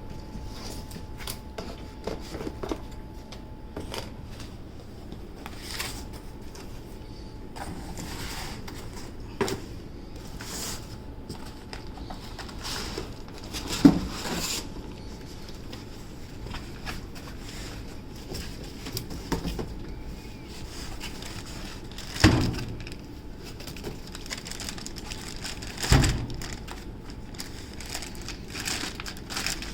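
Unboxing handling noise: cardboard box and packaging being scraped, rustled and shifted in many small clicks, with three louder thumps, one about halfway through and two near the end.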